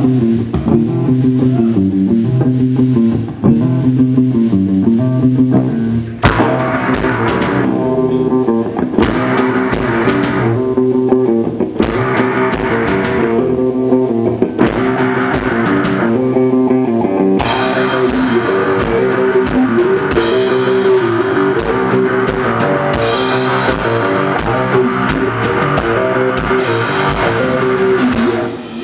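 Rock band playing live: a repeating electric guitar riff alone for about six seconds, then the drum kit comes in, with heavier cymbals from about halfway.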